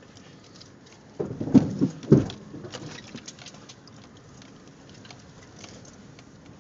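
Vehicle crawling over a rough, rutted dirt track, heard from inside the cab: tyres crunching over rocks and twigs with a scatter of sharp clicks and taps, and two heavy thumps between one and two and a half seconds in as the vehicle jolts over ruts.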